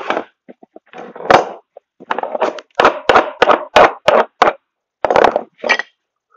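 A run of sharp knocks and thwacks on a workbench while scrap is being worked apart. There are a couple of blows early, then about three a second for a couple of seconds, and a few more near the end.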